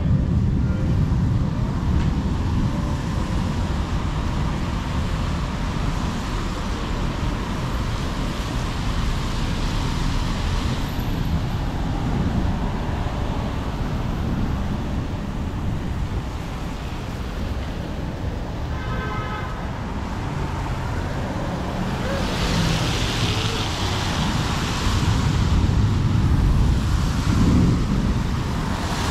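Road traffic running past on rain-wet streets, a steady noise with a deep low rumble. A brief high tone sounds about two-thirds through, and a louder hiss of a passing vehicle follows soon after.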